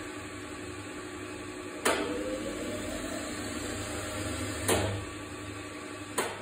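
Schaublin 102 lathe running off its electric motor and overhead belt drive: a steady hum and whir with a light hiss. Three sharp clicks come about two seconds in, near five seconds and just before the end; after the first a whine rises in pitch and the machine runs a little louder until the second.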